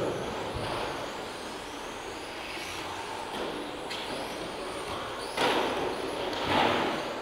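1/10 electric RC touring cars with 17.5-turn brushless motors racing on a carpet track: a continuous whine of motors and drivetrains mixed with tyre noise. There are two louder swells, about five and a half and six and a half seconds in, as cars pass close.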